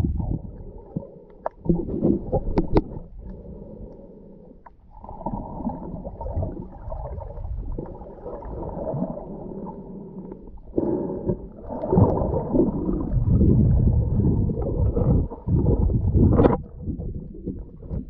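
Muffled underwater sound of water moving around a submerged camera: low rumbling and gurgling. There are a few sharp clicks in the first three seconds, and the rumbling swells louder in the second half.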